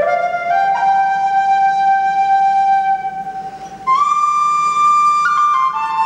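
A solo flute-like wind instrument plays a slow melody of long held notes. One low note is held for about three seconds and grows softer, then the tune steps up to a higher note about four seconds in and moves down by steps near the end.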